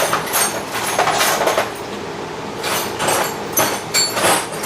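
Hex keys and other small steel hand tools clinking and rattling against each other, in a run of sharp ringing clinks at the start and more about three seconds in, as the keys are sorted for the right size.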